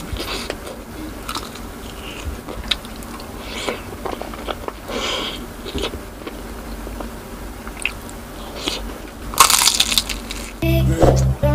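Close-miked eating sounds: biting, chewing and mouth clicks on street food such as skewered hotdog, fish balls and fried turon, with one louder crunchy bite about nine and a half seconds in. Intro music with a heavy beat starts just before the end.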